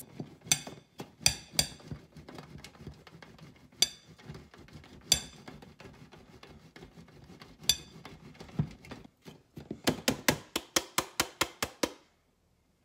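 A block of marbled cheese is grated on a stainless steel box grater over a plate: uneven scraping strokes with a few sharp clinks, then a quick run of about five strokes a second before it stops near the end.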